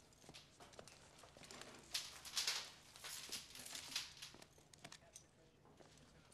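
Rustling and light clinking as a man handles his work gear: coils of electrical wire and metal conduit over his shoulder, and work gloves pulled on. The rustling comes in a few louder bursts about two to four seconds in, with scattered small clicks.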